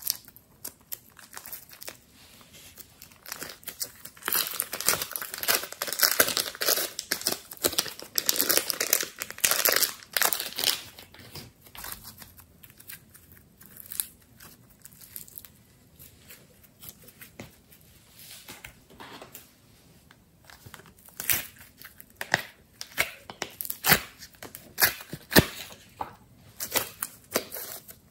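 Glossy slime being pressed, stretched and kneaded by hand, giving a sticky crackling and clicking. It is densest in a long run about four to eleven seconds in, quieter in the middle, and near the end comes as scattered sharp pops.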